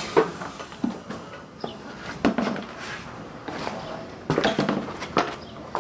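Irregular knocks and clunks, seven or eight of them, some in short clattery clusters, as a donut spare wheel is handled and fitted onto a car's wheel hub.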